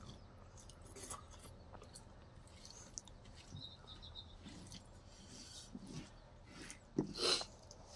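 Fingers rubbing and scraping rice and curry across a banana leaf: faint, scattered soft scrapes, with a louder brief sound near the end.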